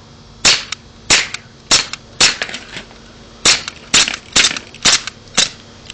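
Walther PPK CO2 blowback BB pistol firing: nine sharp pops in two quick strings, four then five, about half a second apart. Several shots are followed by a fainter click.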